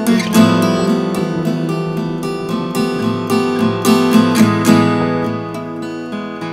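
Acoustic guitar playing an instrumental passage of a folk song, picked and strummed in a steady rhythm and growing gradually softer.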